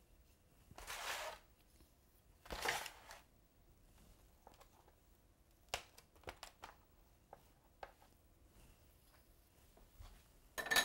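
Kitchen knife cutting scone dough into wedges on a baking sheet: two faint scraping strokes in the first three seconds, then scattered light clicks and taps.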